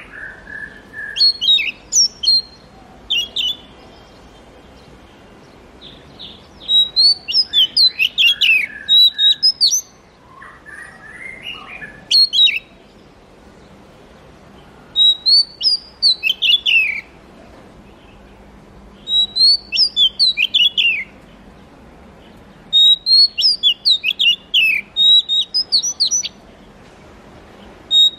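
Oriental magpie-robin singing: loud phrases of quick, high notes sweeping up and down, each a second or two long, repeated every few seconds with short pauses between.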